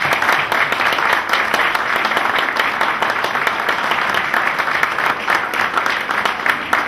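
Audience applauding: many hands clapping in a loud, steady, dense patter.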